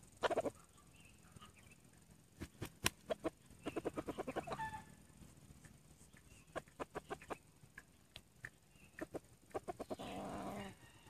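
Male red junglefowl clucking: short, sharp clucks, singly and in quick runs, with a brief rougher burst near the end.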